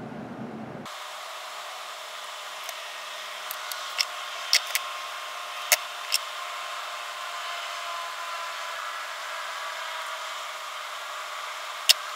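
A steady hiss starts about a second in. Several short, sharp clicks and taps of small parts being handled on a workbench are heard around the middle and once near the end.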